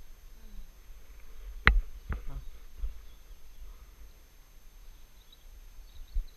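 Wind buffeting the microphone of a bicycle-mounted camera as a low, uneven rumble, broken by two sharp knocks in quick succession about two seconds in and a smaller click near the end.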